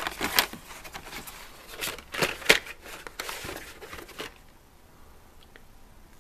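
Carded Hot Wheels cars in plastic blister packs being flipped through and lifted out of a plastic storage tub: crinkling and clacking of plastic and card, loudest about half a second and two and a half seconds in, stopping after about four seconds.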